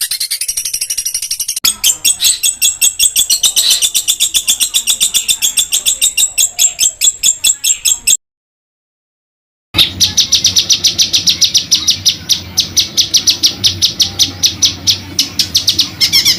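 Songbird singing a rapid rolling song: fast, even strings of sharp repeated notes. The song stops dead for about a second and a half midway, then resumes.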